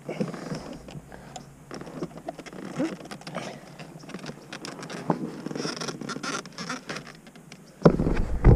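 Light clicks, scratches and rustling of hands handling the freed steering-wheel airbag module and the plastic around the wheel hub. Near the end a sudden loud low rumble sets in.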